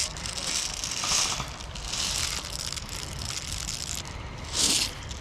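Footsteps scuffing and rustling over dry ground and vegetation while walking, a few separate scuffs with the loudest near the end.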